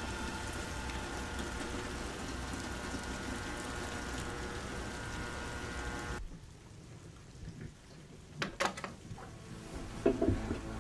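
Steady rain falling, which cuts off abruptly about six seconds in; a few short knocks follow near the end.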